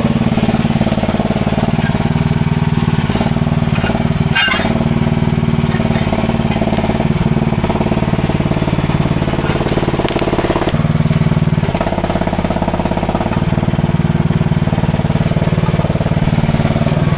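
Mini excavator's small engine running steadily, with a slight shift in its pitch between about eleven and thirteen seconds in. A brief knock about four seconds in.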